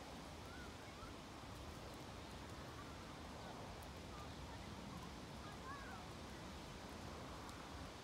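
Faint outdoor background noise, a steady low rumble, with a few faint bird chirps about half a second in and again around five to six seconds in.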